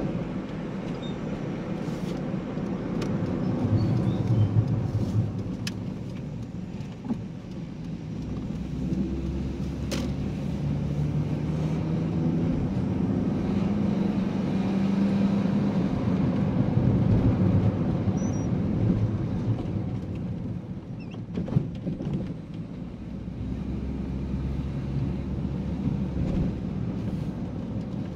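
Car engine and road noise heard from inside the cabin while driving, with the engine note rising and falling as the speed changes. There are a couple of short sharp knocks, one about ten seconds in and another near the twenty-second mark.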